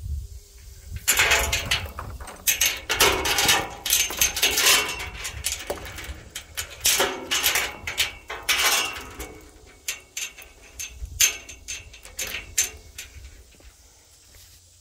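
Footsteps in sandals through grass and over dry dirt: irregular scuffing and rustling with small clicks, fading out near the end.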